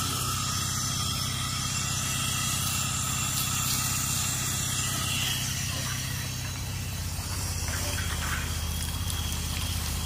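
Pressure washer rinsing with fresh water through a downstream soap nozzle: a steady hiss of spray over the hum of the machine's engine.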